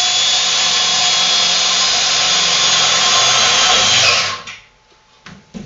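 Cordless drill driving a self-tapping screw through the indicator into a corrugated sheet-steel feed bin wall, running steadily and then stopping about four seconds in. A couple of faint clicks follow near the end.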